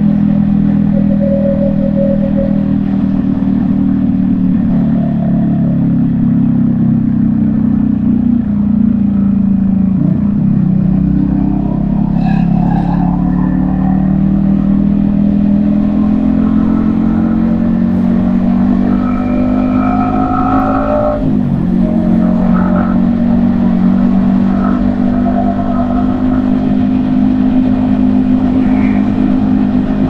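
Yamaha XSR155's 155 cc single-cylinder engine running under way at cruising speed, heard from the rider's helmet. Its note sags and recovers about a third of the way through and breaks briefly about two-thirds through.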